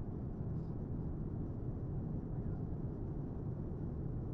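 Steady low cabin noise of a Boeing 787 Dreamliner in cruise: engine and airflow noise heard from inside the cabin.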